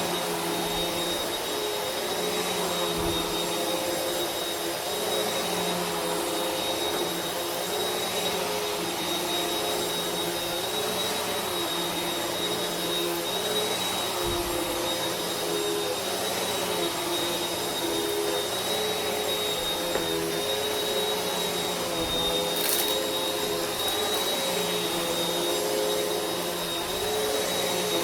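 Vacuum cleaner running steadily, a whooshing rush of air under a constant high-pitched motor whine and a low hum whose pitch wavers slightly.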